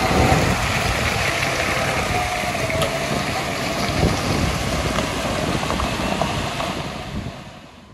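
John Deere tractor's engine running as it pulls away with a trailer, growing fainter, with the sound fading out near the end.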